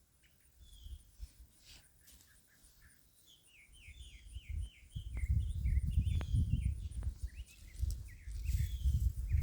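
Small birds chirping outdoors, with a quick run of short falling chirps in the middle. From about halfway in, a louder low rumbling noise sets in, with a few sharp clicks.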